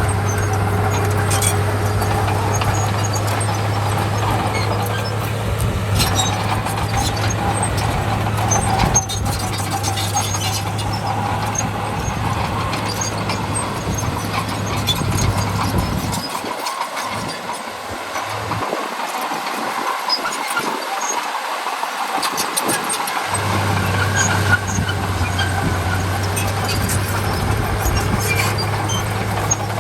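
Bulldozer working: its diesel engine running steadily, with metallic squealing and scattered clanks and knocks. The low engine hum drops out for several seconds in the middle, then comes back.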